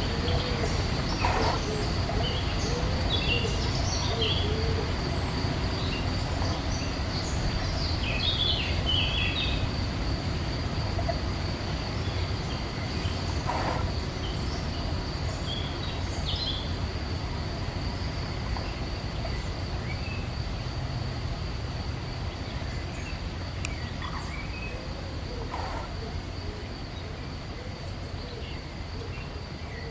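Woodland ambience: small songbirds giving scattered short chirps and calls, mostly in the first half, over a steady high-pitched insect trill and a low rumble.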